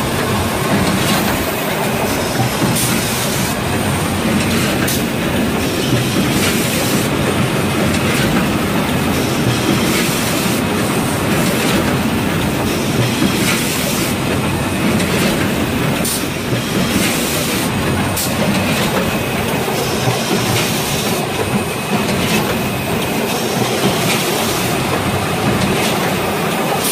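Automatic toilet-paper and kitchen-towel roll bundling machine running: a loud, steady mechanical clatter with frequent clicks and knocks from its moving parts.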